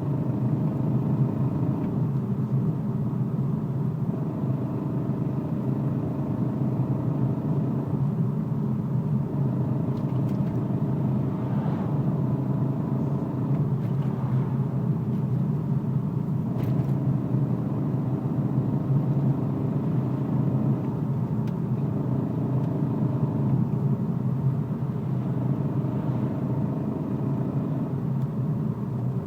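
2004 BMW 318ci driving, its four-cylinder engine running steadily with the pitch shifting a few times as the throttle changes, and a few faint clicks. The owner says the clicking comes from the rear end only on the gas, is getting louder every day, and suspects the differential.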